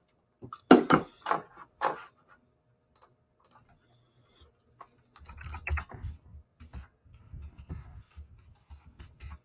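Keys tapped on a computer keyboard: a short cluster of sharp clicks in the first couple of seconds, then softer scattered low thuds and rubbing on the desk.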